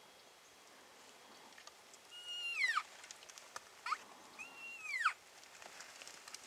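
Cow-elk mew calls: two high calls, each held briefly and then falling, a couple of seconds apart and starting about two seconds in, with a short chirp between them.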